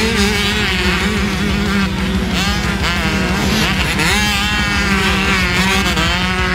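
Several motocross dirt bikes racing on a dirt track, their engines revving up and down repeatedly as they accelerate and back off.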